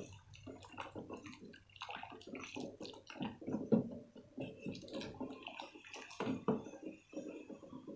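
Wooden spatula stirring a thick agar-agar and coconut milk mixture in an aluminium pot as it comes to the boil: irregular sloshing and scraping strokes, one after another.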